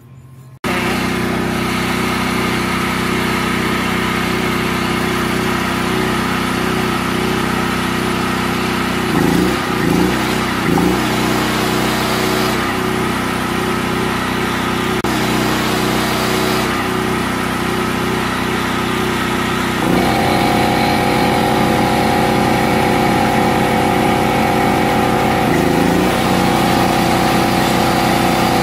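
Simpson PowerShot 3,600-watt gasoline portable generator's engine running steadily from about half a second in. Its note sags briefly three times around ten seconds in as electric loads come on. About twenty seconds in, the whine of a plugged-in electric motor joins it and carries on, with the generator taking the load.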